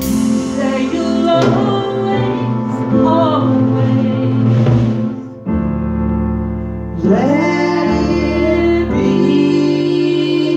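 Small band playing live: two electronic keyboards and a drum kit, with a woman singing.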